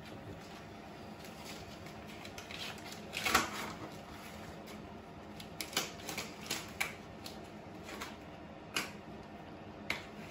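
Rubber-gloved hand wiping a bath panel and bath rim with a cloth: a scatter of short rubbing strokes, the loudest about three seconds in and a quick run of them around six to seven seconds.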